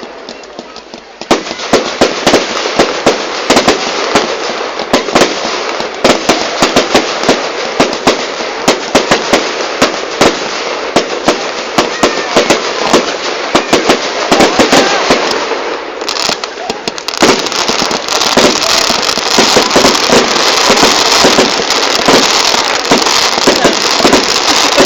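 Fireworks going off in a rapid barrage of sharp bangs and crackles, starting about a second in. There is a short lull about two thirds through, then a denser stretch of crackling.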